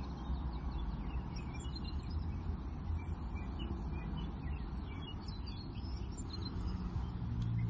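Small birds chirping and twittering, many short calls scattered throughout, over a steady low background rumble.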